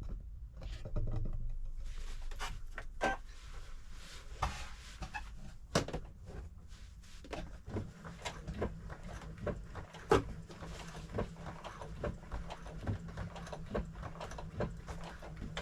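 Sewing machine stitching denim slowly on a triple stitch: irregular clicks and knocks of the needle and feed, with a low motor hum that settles in about halfway through.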